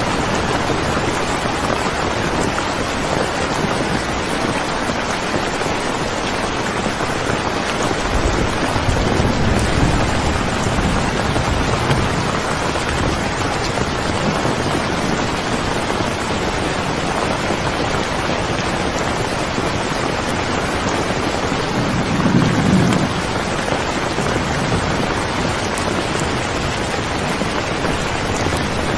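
Steady heavy rain hissing evenly, with a low swell about nine seconds in and a stronger, brief one a little past twenty seconds.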